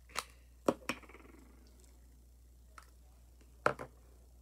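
A few sharp plastic clicks and snaps as a small slime tub is handled and its lid pried off: three in the first second, the last followed by a brief rustle, then two more in quick succession near the end.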